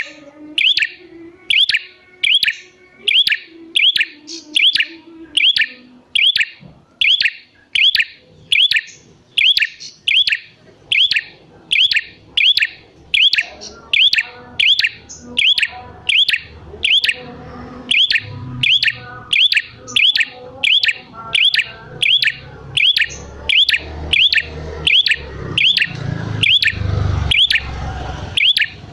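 Prenjak merah (red-headed prenjak) calling: one sharp, high, downswept chirp repeated steadily about one and a half times a second, with a faint low rumble underneath in the second half.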